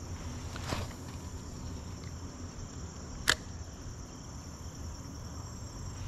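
Steady high-pitched chorus of crickets or katydids, with a soft swish about a second in and a single sharp click a little past three seconds, the loudest sound here.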